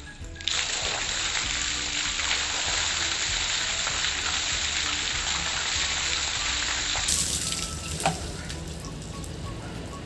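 Water pouring in a loud, steady gush that starts suddenly about half a second in and stops about seven seconds in. A sharp knock comes about a second later.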